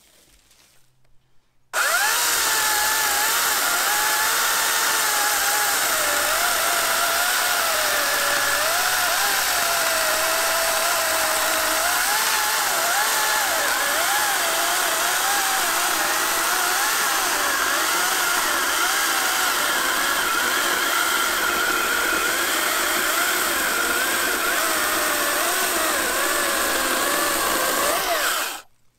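AEG 58-volt battery chainsaw cutting through a thick log, its motor's whine rising and falling in pitch as the chain works under load. It starts about two seconds in and cuts off abruptly near the end.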